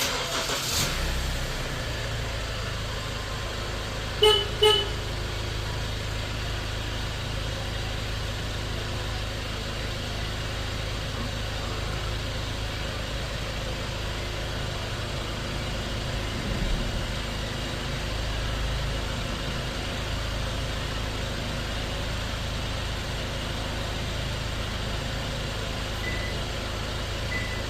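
Kia Carnival minivan engine started by a remote-start alarm unit, then idling steadily. The car horn chirps twice, short and close together, about four seconds in.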